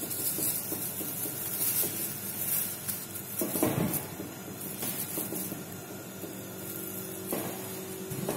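Thin plastic sheet crinkling and rustling in irregular bursts as hands press and fold it over a lump of cookie dough on a steel worktable, with a faint steady hum underneath.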